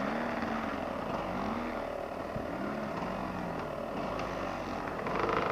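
Dirt bike engines running on a trail, one nearby engine's revs rising and falling a few times over a steady idle.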